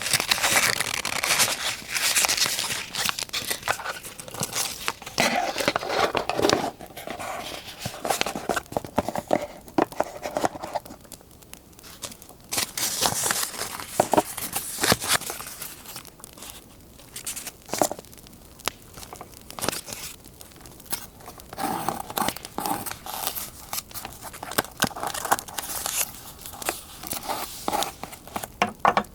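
Paper being handled for a scrapbook collage: irregular crinkling and rustling of paper, with tearing, quieter in the middle stretch.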